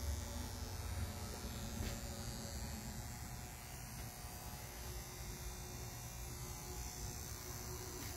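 A steady low hum with a faint even hiss over it.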